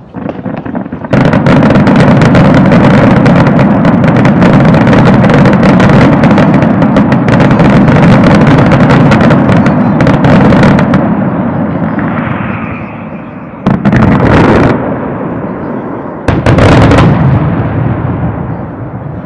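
Fireworks going off in a dense barrage, a near-continuous run of bangs and crackle for about ten seconds that then fades, followed by two shorter volleys of bangs.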